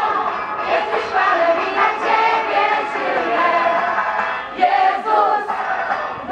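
A group of pilgrims singing a song together, with a brief pause between lines about four and a half seconds in.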